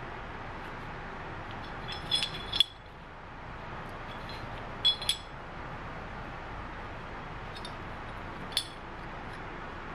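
Cleaned steel foot peg brackets and springs from a Kawasaki KX450F clinking against each other as they are turned in gloved hands: a few light metallic clinks about two seconds in, a couple more around five seconds, and one shortly before the end, over steady background noise.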